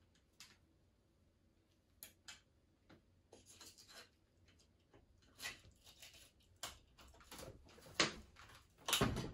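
Scattered light rubbing, scraping and clicks of a wire being fed by hand through an electric scooter's folding stem. The handling gets busier and louder toward the end, with a sharp click about eight seconds in.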